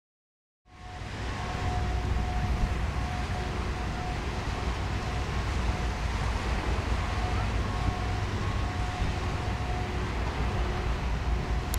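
Wind rumbling on the microphone over a steady outdoor hiss, fading in just under a second in, with faint on-and-off tones in the background.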